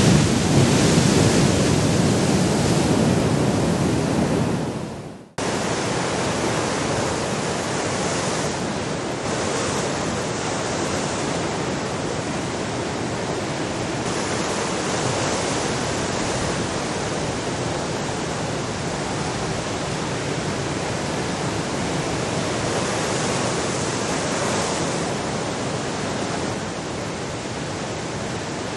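Very large ocean waves breaking: a steady rushing surf noise. A louder, deeper wash fades and cuts off about five seconds in, and steady heavy surf follows.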